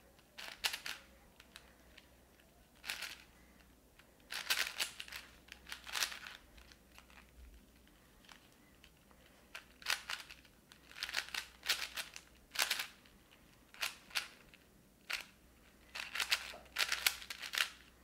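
Plastic 4x4 Rubik's cube being turned by hand: quick clusters of clicking and clacking as its layers are rotated, in bursts separated by short pauses.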